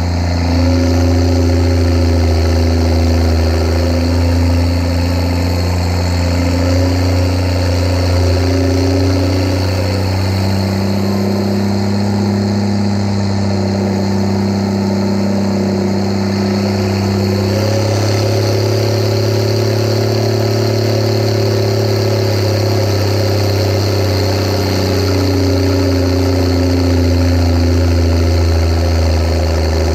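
Steyr 8130 Turbo tractor's six-cylinder turbo diesel running under load while driving, towing a 12,000-litre water tanker, heard close to its upright exhaust stack. The engine note drops and climbs again several times as the revs change.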